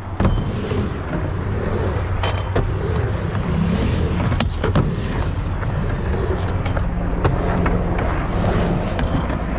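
Skateboard riding back and forth on a plywood halfpipe: a steady rumble of the wheels on the ramp, broken by several sharp clacks as the board hits the coping and deck.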